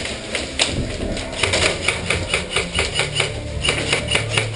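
Airsoft rifle firing a rapid string of sharp clicking shots, about six a second, starting about a second and a half in, after a few single snaps.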